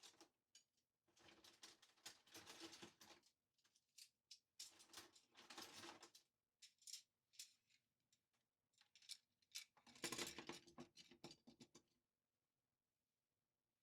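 Faint clinking and rattling of metal cutlery being handled and sorted. It comes in three bursts of a second or two each, with single clinks between, and stops about two seconds before the end.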